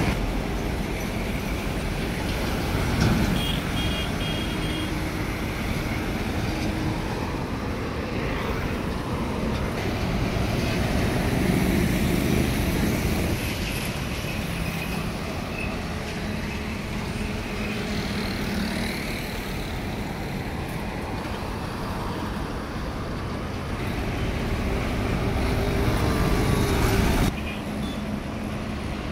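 Highway traffic going past: trucks, cars and a motorcycle, a steady engine and tyre rumble that swells as each heavy vehicle passes.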